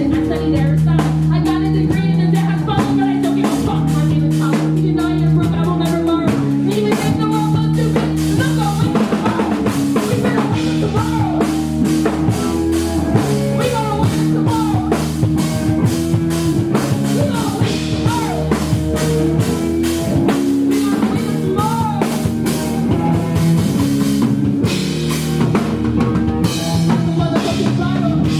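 Band music with a steady drum-kit beat, bass and guitar.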